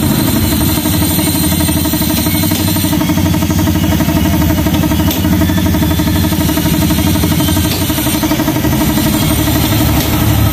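An engine-like motor running steadily and loudly, with a fast, even pulse.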